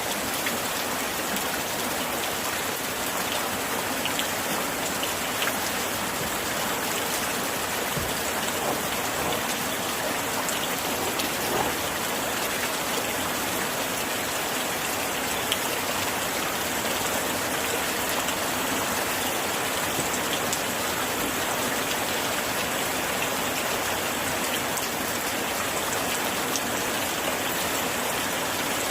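Steady gentle rain falling against window glass: an even hiss dotted with scattered light taps of drops.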